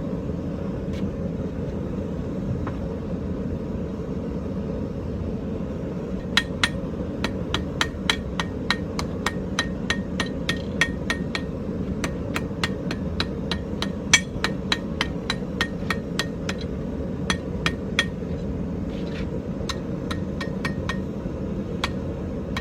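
Hand hammer striking hot iron bar stock on an anvil while forging: a few scattered blows, then from about six seconds in a steady run of ringing strikes at about two a second, over a constant low rumble.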